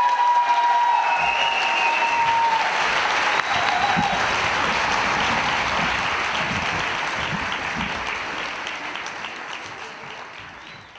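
Audience applauding, fading out steadily toward the end, with a long whistle-like tone over the first two and a half seconds.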